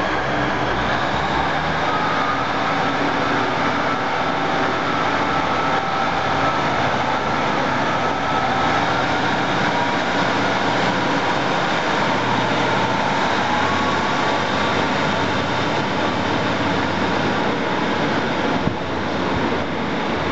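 Class 150 Sprinter diesel multiple unit moving through the station, a steady diesel engine and transmission drone with faint whines that slowly shift in pitch.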